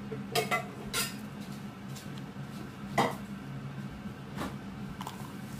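A handful of sharp clicks and taps as small hard makeup items are handled against a plastic slime tub. The loudest comes about three seconds in, and a steady low hum runs underneath.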